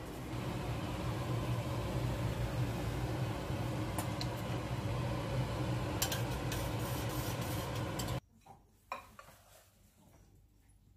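Metal kitchen tongs clicking and tapping against a ceramic dish of cooked asparagus, over a steady kitchen hum. The hum cuts off abruptly about eight seconds in, leaving quiet with a couple of faint clicks.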